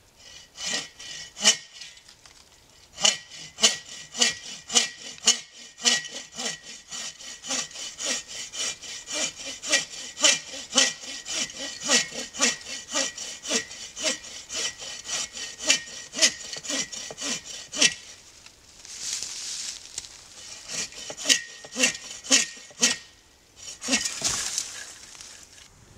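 Red-handled hand pruning saw cutting through a fallen limb of fairly fresh wood that the sawyer takes for poplar, in steady back-and-forth strokes about two a second. The sawing stops for a few seconds, resumes briefly, and ends with a short rustle.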